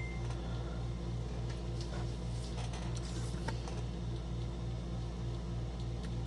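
Steady low machine hum with a regular throb about three times a second, and a few faint ticks over it.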